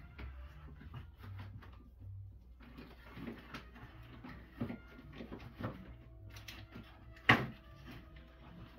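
Scattered light knocks and handling sounds in a small room, with one sharp knock about seven seconds in, over a faint steady hum.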